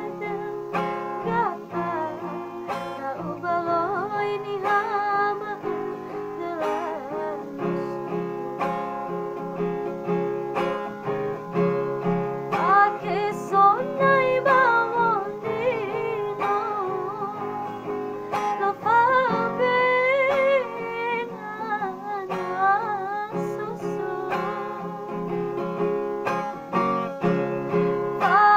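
Music: a woman singing a melody over guitar accompaniment.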